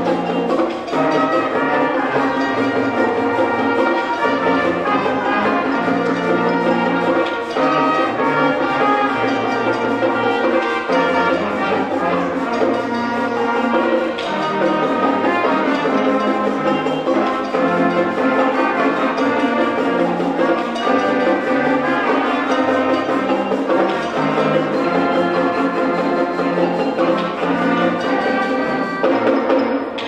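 Middle school concert band playing: clarinets, flutes, saxophones and brass sounding full chords over moving bass notes, without a break.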